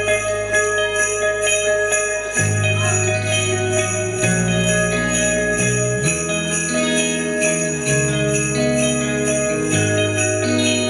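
Rock band playing an instrumental passage: bass guitar and electric guitar under a hand-shaken jingle instrument that rings in a steady rhythm of about four shakes a second. The bass shifts to a new note every second or two.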